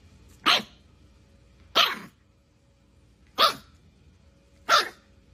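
A bulldog puppy barking four times, short single barks a little over a second apart.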